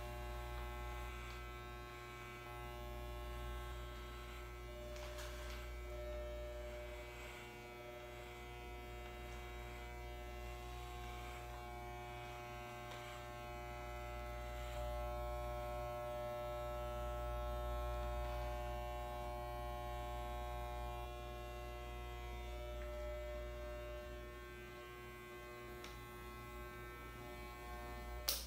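Corded electric hair clippers buzzing steadily as they cut a man's hair, the buzz rising and falling a little as the clippers move over the head. Near the end a sharp click switches them off.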